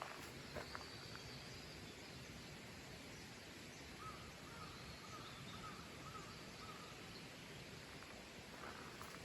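Faint steady outdoor background hiss with a bird calling: a quick run of about seven short notes midway through, and a thin high whistled note near the start.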